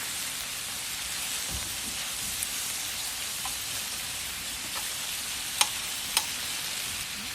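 Meat sizzling on a hot grill, a steady hiss with two sharp pops about two-thirds of the way through.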